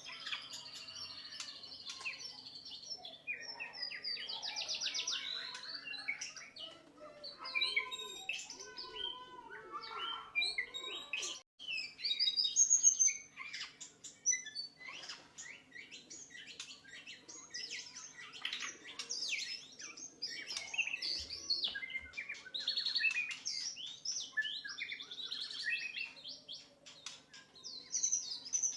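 White-rumped shama (murai batu) singing a long, varied song of clear whistles, fast trills and rapid chattering phrases, with brief pauses between phrases. A faint steady hum lies underneath.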